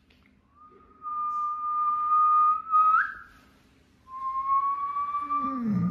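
German shepherd dog whining: two long, high-pitched whines, the first held steady and then rising sharply at its end.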